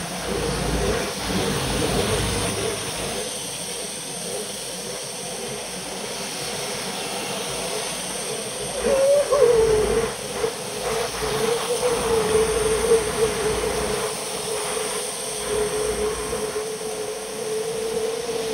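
Bicycle riding on a rain-wet road: a steady hiss of tyres on wet asphalt with wind rumble on the bike-mounted microphone, and a wavering hum through it.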